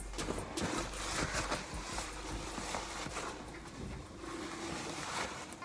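Fingers rubbing skin-peeling gel over facial skin: a faint scratchy rubbing with many small crackles as the gel and dead skin roll up.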